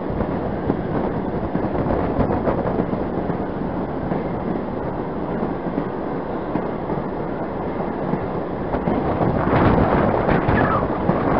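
Pere Marquette 1225, a 2-8-4 Berkshire steam locomotive, running under way, heard from on board as a steady rush of running noise with wind on the microphone, growing louder near the end.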